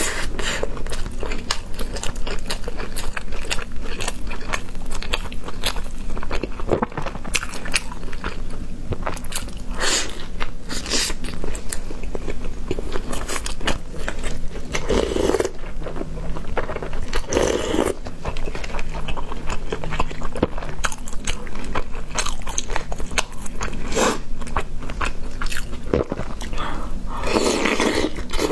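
Close-miked eating: steady chewing and biting, full of small clicks and smacks, with a few louder bursts about halfway through and near the end.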